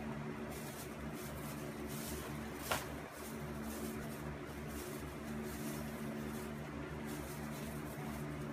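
Steady low electrical hum of a kitchen appliance, with faint soft rustles and one sharp click about three seconds in.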